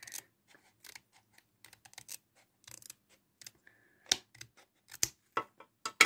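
Scissors snipping at a clear plastic card holder: a run of short, irregular clicks and crunches, the loudest about four, five and six seconds in.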